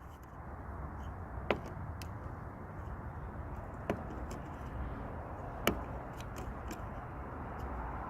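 Lock pick being worked in a Jeep Liberty's lock: three sharp metallic clicks a couple of seconds apart and fainter ticks, over steady low background noise.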